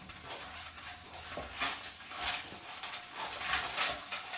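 Paper slips rustling as a hand rummages in a draw box, in several short scratchy bursts.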